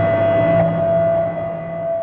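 Ominous synthesizer drone: a dense low chord under a single held high tone, fading slowly from about a second in.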